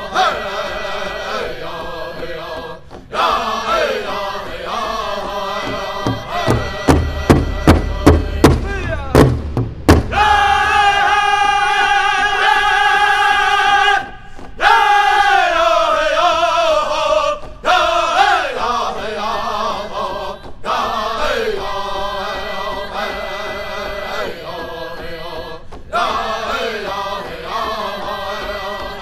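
A pow wow drum group singing a high-pitched chanted song. Hard drum strikes, about three a second, stand out between about 7 and 10 seconds in. The sound breaks off briefly several times.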